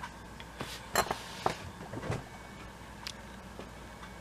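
Quiet room tone: a steady low hum with a few soft clicks and rustles scattered through it, from small movements close to the microphone.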